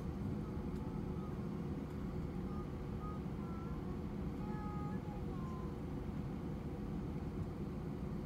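Airbus A320 cabin noise while taxiing: a steady low rumble from the engines at idle and the cabin air system, with a constant hum. A few faint short high tones sound midway.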